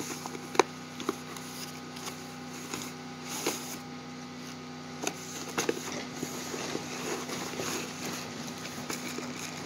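Cardboard packaging being handled: a cardboard box opened and a smaller box lifted out, with light rustling and scattered taps and knocks, the sharpest about half a second in, over a faint steady hum.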